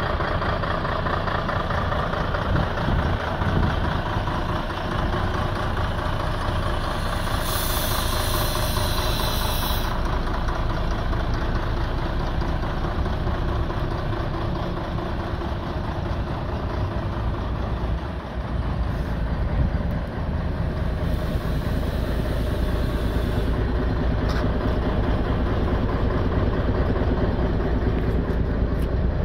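Mercedes-Benz SK 3234 8x4 truck's V6 diesel engine idling steadily. A short hiss of air lasting about two seconds comes about a quarter of the way in.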